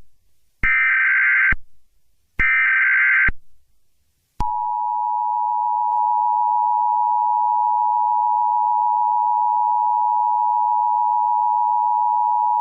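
Emergency Alert System tones: the last two of three short, buzzy SAME digital header bursts, each under a second with a pause between, then from about four seconds in the steady two-tone EAS attention signal, held loud and unbroken. This is the signal that an emergency alert message is about to follow.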